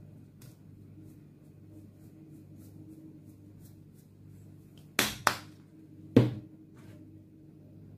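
Three sharp knocks, two close together about five seconds in and a third a second later, from a plastic measuring spoon knocking against a plastic mixing bowl while spice is shaken into potato batter. A steady low hum runs underneath.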